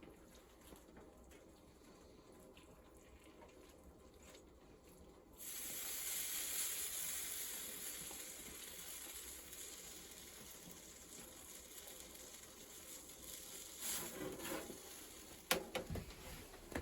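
Food sizzling in a hot pan: the hiss starts suddenly about five seconds in and slowly dies down, with a few knocks of cookware near the end.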